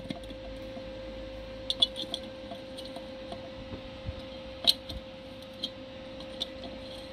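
Scattered light metallic clinks and taps, about a dozen, as bolts are handled and threaded by hand into the steel flange of a homemade pipe puller on a ZF S5D gearbox casing. The loudest clink comes about two-thirds of the way in, over a faint steady hum.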